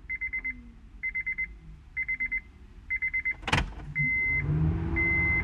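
Honda Civic warning chime sounding with the ignition key cycled: a rapid buzzing chime in short bursts about once a second, then a sharp click about three and a half seconds in as the key turns to on. After the click the chime changes to a single plain beep about once a second, and a steady low hum comes on.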